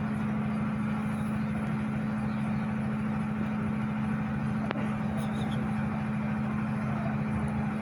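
A steady low mechanical hum, with a single short click a little past halfway.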